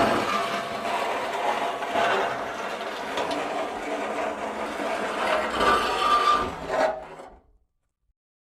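Metal scraping against metal: a continuous rough, grating scrape with faint squealing tones in it. It starts abruptly and fades out about seven seconds in.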